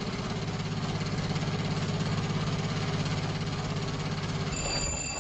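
Old motor car engine running with a steady, rapid chugging pulse: a radio-drama sound effect for the jitney setting off. Near the end a telephone bell starts ringing.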